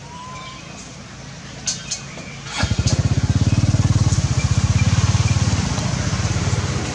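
A small engine comes in suddenly about two and a half seconds in and keeps running loud with a fast, even, low putter. A couple of short clicks come just before it.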